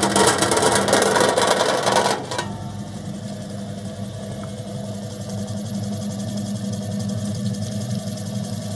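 Mochi and dango-making machine running on its three-phase 200 V electric motor just after being switched on. A loud rattling clatter for about the first two seconds, then a steady machine hum as the arm turns in the granite mortar.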